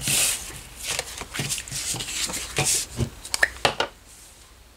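Sheets of cardstock sliding and rustling on a tabletop as they are handled and moved around, with a few light taps and knocks.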